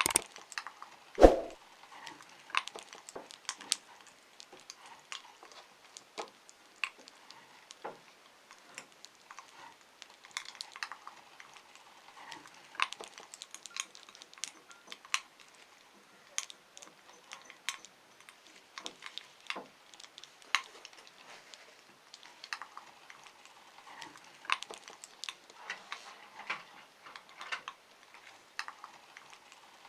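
Meat grinder working through gummy candy: irregular small clicks and crackles, a few a second. Two louder knocks come in the first second and a half.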